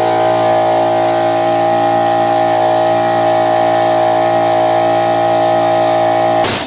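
Repaired piston air compressor running steadily under load as it pumps up pressure, a constant hum made of many tones. Just before the end it stops abruptly with a short burst of noise.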